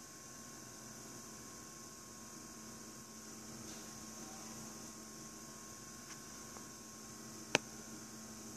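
Electric pottery wheel running with a steady hum while clay is centered on it. One sharp click comes near the end.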